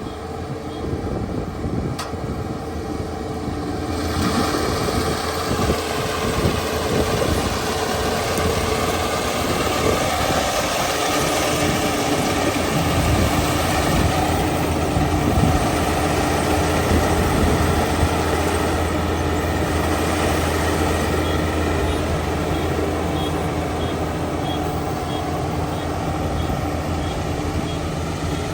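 Kubota ER572 combine harvester's 72-horsepower diesel engine running steadily. About four seconds in the sound grows fuller and louder, and a low hum strengthens about halfway through.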